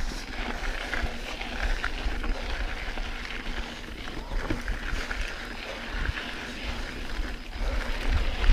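Mountain bike riding along a dirt singletrack trail: tyres crunching over dirt and gravel, under a low wind rumble on the microphone that grows louder near the end.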